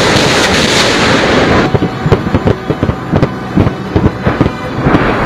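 A rushing roar, then about a second and a half in a rapid, irregular ripple of many explosions: a salvo of artillery or rocket rounds striking a target field.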